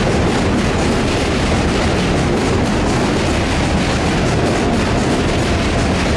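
R188 subway train running along the track: a steady, loud rumble and rush of wheels on rail.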